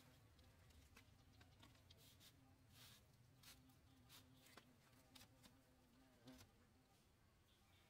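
Near silence, with faint scattered light clicks and a faint steady hum.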